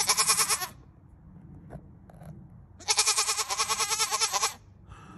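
A goat bleating: one short bleat, then about three seconds in a longer bleat lasting over a second and a half.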